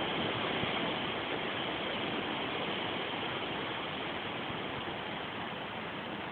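Steady rushing noise of a storm: wind blowing through the trees.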